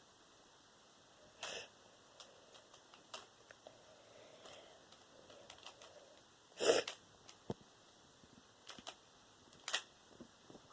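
A 2x2 Rubik's cube being turned by hand: scattered faint plastic clicks, with two louder brief rasps, one about a second and a half in and the loudest about two-thirds of the way through.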